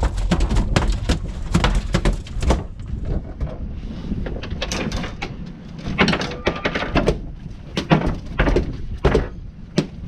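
A freshly landed halibut thrashing on a boat deck: a run of irregular thuds and slaps, with a low rumble under them in the first couple of seconds.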